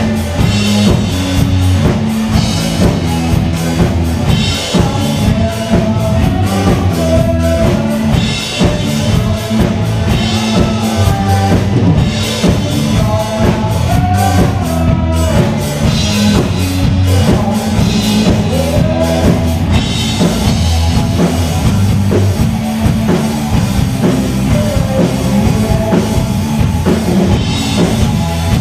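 Three-piece rock band playing live: electric lead guitar over bass guitar and a drum kit keeping a steady rock beat.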